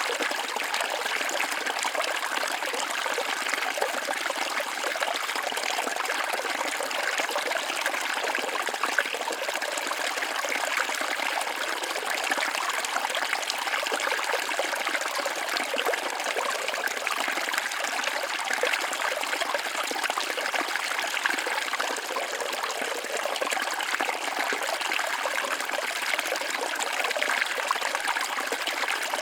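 Small waterfall splashing steadily, a continuous rushing and trickling of falling water.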